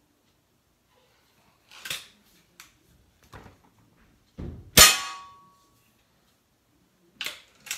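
Diana 240 Classic .177 break-barrel spring-piston air rifle firing one shot about five seconds in, a thud and sharp crack with a short ringing tone after it. A few light clicks of handling come before and after the shot.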